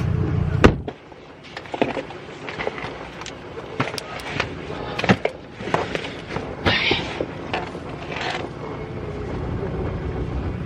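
A sharp knock cuts off a low rumble, followed by scattered clicks, taps and brief rustles of things being handled. A low rumble comes back near the end.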